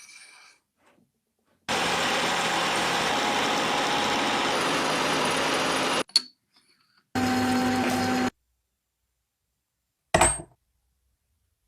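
A small motor runs in two bursts, each starting and stopping abruptly: about four seconds, then about a second with a steady hum. A single sharp knock comes near the end.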